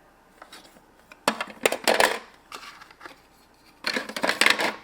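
Small plastic toy pieces being handled and put into a toy backpack, rustling and clattering in two bursts, the first about a second in and the second near the end.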